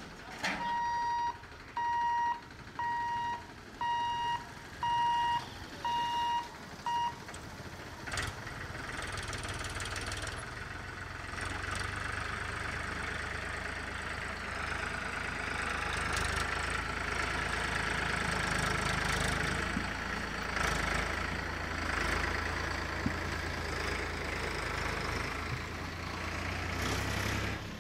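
Level-crossing warning buzzer beeping about once a second for several seconds as the boom barrier opens. Then a diesel tractor engine running as it pulls away over the crossing, with other road traffic passing.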